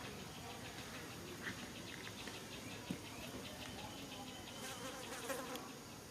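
Insects buzzing in a rapid, even pulse, with a brief knock about three seconds in.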